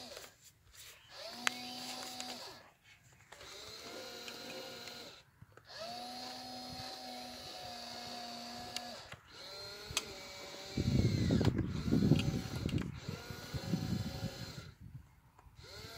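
Small electric motors of a 1/12 Hobby Engine RC crawler crane whining in short runs of one to three seconds, starting and stopping again and again, each start quickly rising in pitch, as the winch lowers and raises the grab bucket. From about eleven to fourteen seconds a louder rough rustling noise runs under the whine.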